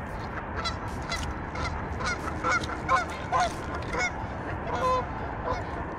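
Geese honking over and over in short calls, a few each second, upset at a person close by.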